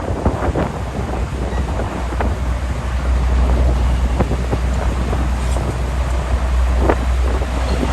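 Steady low rumble aboard a moving river ferry, with wind buffeting the microphone and scattered light knocks. The rumble grows stronger about three seconds in.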